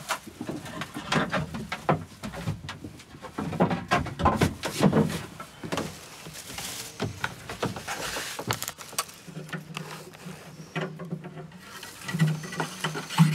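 Handling noises in a boat's cabin: scattered knocks, clicks and rustles as gear is moved and the engine compartment is opened and the fuel tank reached. A low hum comes in about halfway through.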